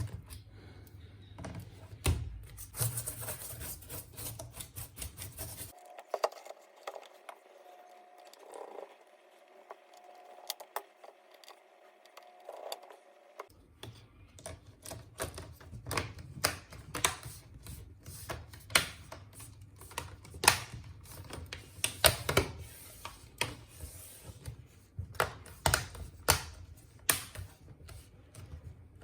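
Hands working on an HP EliteBook 8470p laptop: a run of sharp, irregular plastic clicks and taps, often several a second. There is a quieter, sparser stretch from about six seconds in to about thirteen seconds in.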